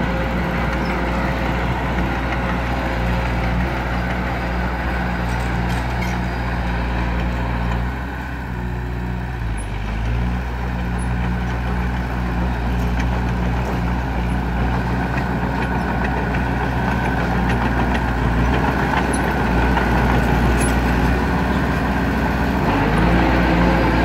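Komatsu crawler bulldozer's diesel engine running steadily as the machine works fill. About eight seconds in the engine note drops and wavers for a couple of seconds, then picks back up.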